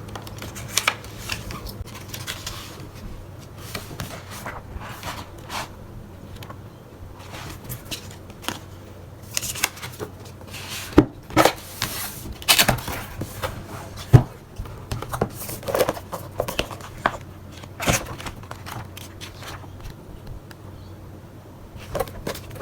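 Hands handling a manga box set and its paper and cardboard packaging: irregular rustling, scraping and sharp clicks, busiest around the middle, over a faint steady hum.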